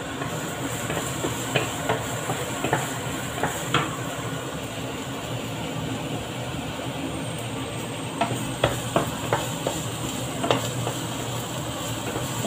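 Wooden spatula stirring food frying in a nonstick wok, over a steady sizzle. Sharp taps and scrapes of the spatula against the pan come in scattered clusters, a few in the first seconds and a quick run past the middle.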